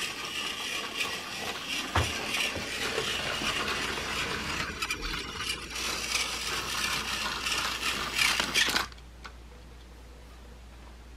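Battery-powered toy train running on plastic track, pulling a Plarail freight car whose cargo crates bounce up and down, making a continuous busy clatter of motor, gears and rattling plastic. The clatter cuts off suddenly about nine seconds in.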